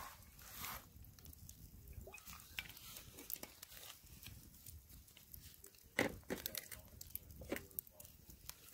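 Wood campfire crackling faintly with scattered small pops, and one sharper pop about six seconds in.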